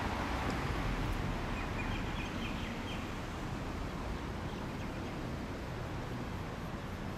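Outdoor city-street background noise, a steady rumble and hiss, with a short run of faint high chirps about two seconds in.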